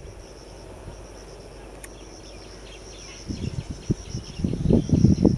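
Insects chirring steadily at a high pitch, joined about halfway by an insect's evenly repeated ticking call. From about three seconds in, irregular low rumbling gusts rise over them and become the loudest sound.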